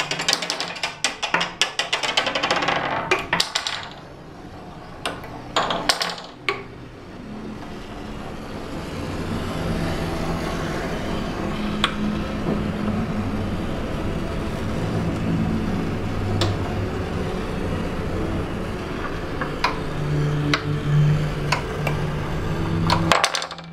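Table skittles: a wooden top spun off by a pulled string clatters around a wooden board, with a quick run of knocks against pins and walls for the first few seconds. It then spins on with a steady low whirring hum, broken by occasional single knocks as it strikes pins.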